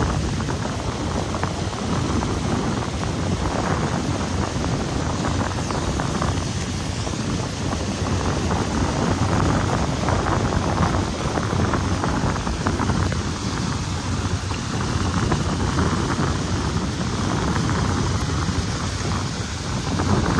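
Steady wind noise on the microphone aboard a moving speed boat, swelling and easing slightly, with the boat's engine and rushing water underneath.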